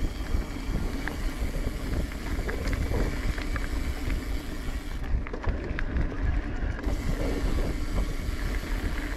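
Wind rumbling on the camera microphone of a mountain bike rolling down a dirt trail, with tyre crunch and scattered clicks and rattles from the bike.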